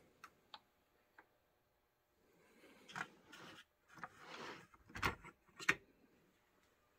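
A plastic model locomotive being handled and its body shell pulled off the chassis: a few faint clicks, then scattered sharp plastic clicks and soft rustling, the sharpest about three and five seconds in.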